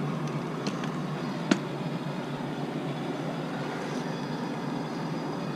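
A machine runs steadily, like an engine, and one sharp knock comes about a second and a half in.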